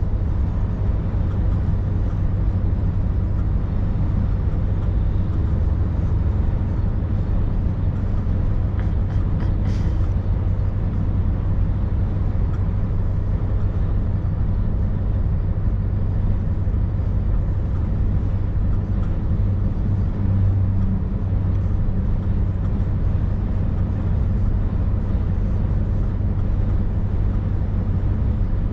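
Scania V8 530S truck's 16-litre V8 diesel running steadily under way, a deep even engine hum with road noise.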